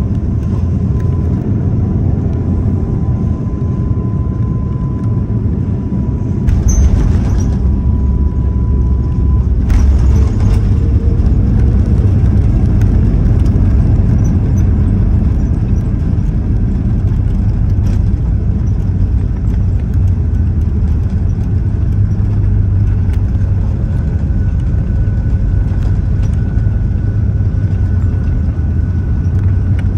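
Jet airliner cabin noise on approach: a steady low rumble of engines and airflow heard from inside the cabin, with a faint steady whine. The rumble grows louder about six and a half seconds in.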